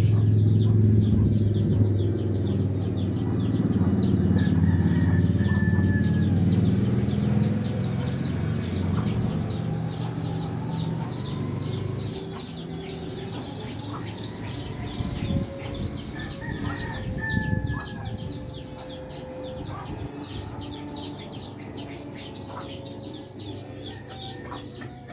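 Chickens clucking in a yard, over a high chirping that repeats several times a second. A low steady drone is the loudest sound at first and fades about twelve seconds in.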